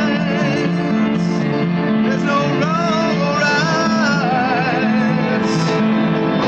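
Band music with guitar and a wavering lead melody over a repeating low note pattern.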